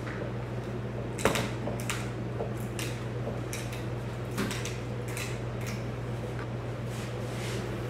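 Knife slicing and scraping through a large raw fish on a wooden board, a series of short rasping strokes, the sharpest about a second in, over the steady low hum of a fan.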